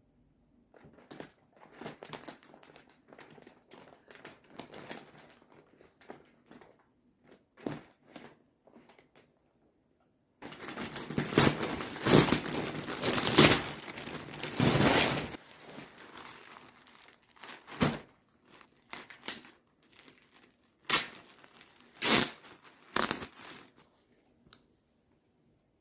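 Crinkling and rustling handling noise, loudest for about five seconds in the middle, with scattered crackles before and after.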